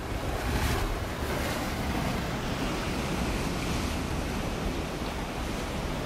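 Ocean surf washing steadily, with wind buffeting the microphone.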